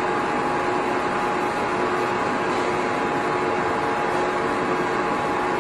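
Large CW61125B heavy-duty lathe running: a steady mechanical hum and whir with a few faint steady tones in it.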